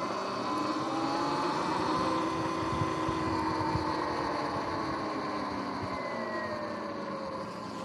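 Sur-Ron electric dirt bike's motor and drivetrain whining, rising in pitch as the bike speeds up, then dropping as it slows near the end, over steady tyre and wind noise.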